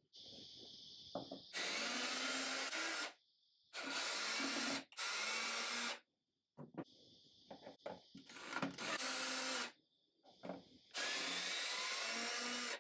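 Ryobi cordless drill run in about five short bursts of one to two seconds each, working into the wooden corner block of a chair frame. Small clicks and handling noise fall between the runs.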